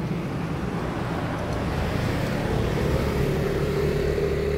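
A steady vehicle rumble, with a humming tone that comes in about halfway through.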